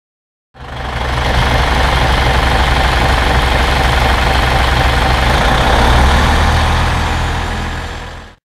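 Motor vehicle engine running steadily, fading out near the end.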